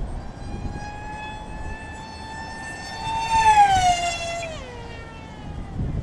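Electric motor and propeller of a FunJet RC plane whining as it passes the microphone at speed. The whine swells to its loudest about three and a half seconds in, then drops steeply in pitch as the plane moves away. Gusts of wind rumble on the microphone at the start and end.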